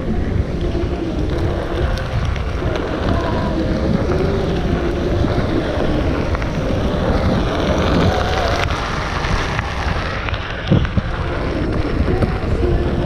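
Wind buffeting the microphone while riding a Onewheel XR, with a faint wavering hum underneath that rises and falls. A single sharp knock about three-quarters of the way through.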